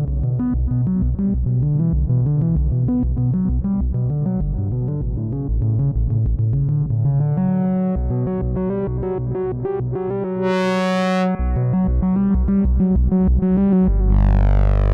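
Moog Matriarch Dark semi-modular analog synthesizer playing a sequenced pattern of short notes over a bass line. About ten and a half seconds in, a brighter note comes through, and near the end a deep low note enters with a sweeping filter.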